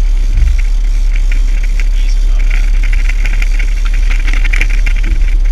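Outboard motor running steadily, with a light, flickering rattle over its low drone.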